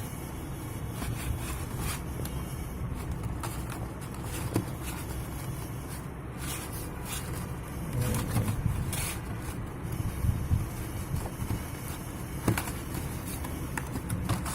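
Packaging of a diecast model motorcycle being handled: scattered clicks, scrapes and rustles over a steady low rumble.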